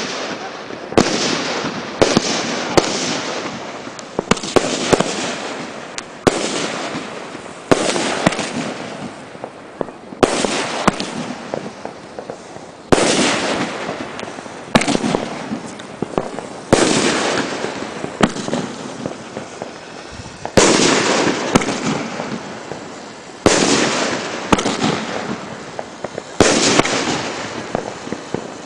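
Fireworks bursting one after another, a sharp bang every one to three seconds, each followed by a noisy tail that fades over a second or two.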